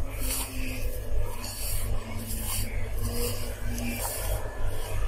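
A hand rubbing and squeezing crumbly maida flour mixed with oil and yogurt against the sides of a steel bowl, half-kneaded bhature dough. Repeated rasping rubbing strokes, about one or two a second, over a steady low hum.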